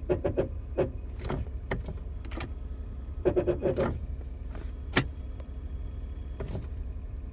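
Brakes of a 2007 Toyota Highlander Hybrid making a rapid, pulsing groan in short bursts, three times, while the brake pedal is held down, over a steady low hum; a single sharp click about five seconds in.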